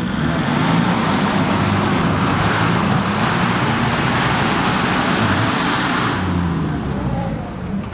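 Off-road 4x4's engine running loud under changing revs, with a broad rushing noise over it that cuts off about six seconds in; the engine sound drops away near the end.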